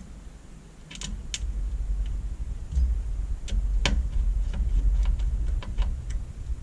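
Parts of an LCD touch monitor being handled and set back in place: an uneven low rumble of moving and setting down pieces, with several sharp clicks and taps, the loudest about four seconds in.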